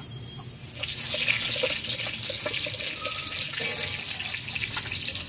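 Black mustard seeds tipped into hot mustard oil in a steel kadai with a dried red chilli. About a second in, a loud sizzle starts, full of the crackle of the seeds popping and spattering.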